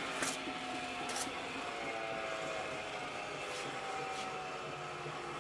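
Royal Master TG-12-4 centerless grinder running under power: a steady machine hum with a faint whine, broken by a few short hisses.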